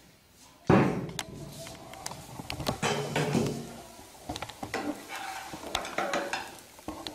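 Cookware clatter: a sharp knock about a second in as the lid comes off the metal pot and a glass bowl is set down, then clinks and a metal spoon scraping through cooked lemon rice in the pan.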